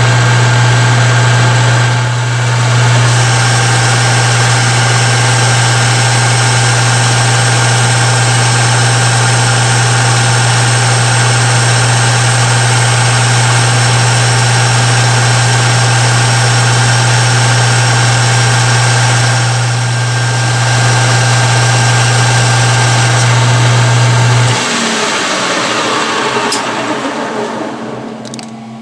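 13x40 manual metal lathe running under power feed on a finishing pass: a steady motor hum with gear whine. About 24 seconds in, the motor cuts off and the machine winds down.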